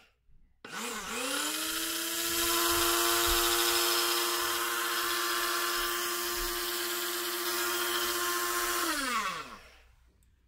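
Cuisinart DCG-20N grinder's electric motor spinning its blade in the empty steel bowl: it spins up with a rising whine, runs steadily for about eight seconds, then winds down with a falling whine when released. The motor now spins after the no-spin fault was repaired.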